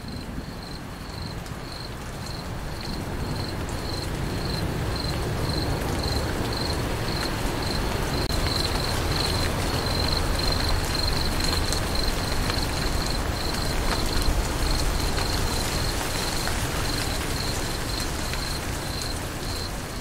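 A cricket chirping steadily in an even pulse of about two or three high chirps a second, over the steady noise of rain that grows louder over the first few seconds.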